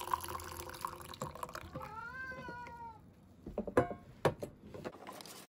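Hot coffee pouring from a thermal carafe into a mug, then a cat meows once, a single call of about a second that rises and falls in pitch. A few sharp knocks follow near the end.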